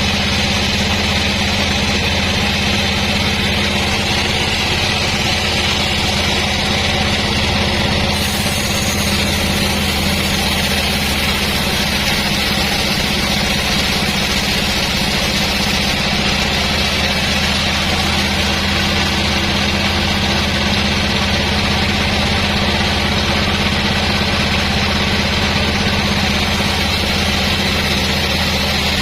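Sawmill machinery running steadily: a constant engine or motor hum with a steady hiss over it, unchanging in level.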